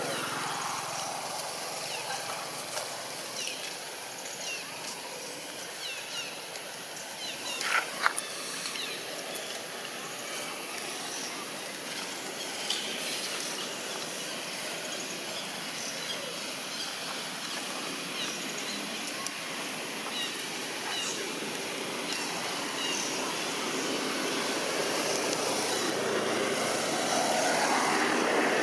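Outdoor background with the engine noise of distant traffic, swelling as something passes near the start and again toward the end. Faint high chirps are scattered through it, and there is one brief sharp sound about eight seconds in.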